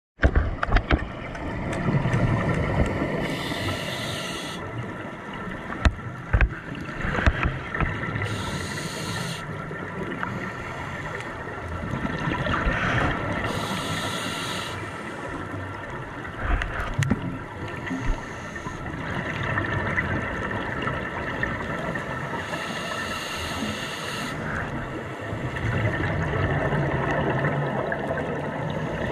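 Scuba breathing heard through an underwater camera housing: bursts of exhaled bubbles about every five seconds over a steady muffled underwater hum, with a few knocks against the housing in the first several seconds.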